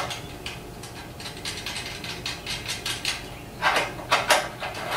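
Light metal clicks and clinks of hardware being fitted by hand to a metal roof rack bracket: a run of quick small clicks, then a few louder clanks of metal on metal near the end.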